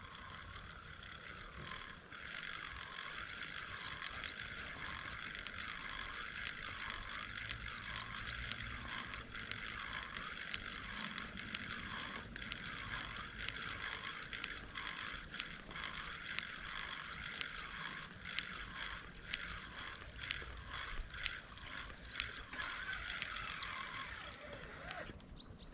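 Okuma PowerLiner Pro 8000 spinning reel being wound in steadily, its sound swelling and fading about once a second with each turn of the handle, as the Spomb is retrieved on the spod rod.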